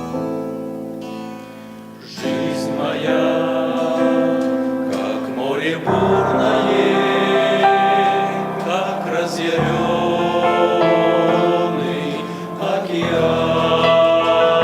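Hymn music: keyboard notes die away over the first two seconds, then a fuller ensemble comes in with choir-like voices and accompaniment.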